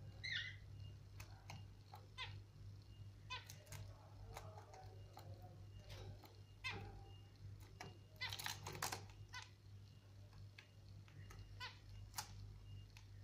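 Lovebird making soft, short chirps, squeaks and clicks, with a brief gliding call just after the start and a cluster of calls about eight to nine seconds in.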